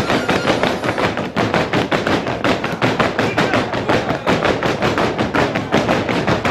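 Fast, even stamping of dancers' feet, about five beats a second: the men's stamped step of the Oaș danț.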